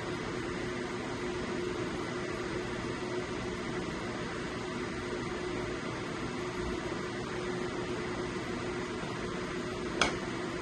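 A steady fan-like hum with a faint steady tone underneath, and one short knock near the end.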